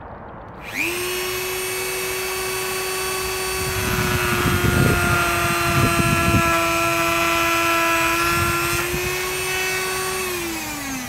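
Dremel rotary tool switched on about a second in, spinning up to a steady high whine. It makes rough grinding sounds through the middle as the bit cuts an incision into a Japanese maple branch. Near the end it winds down, falling in pitch.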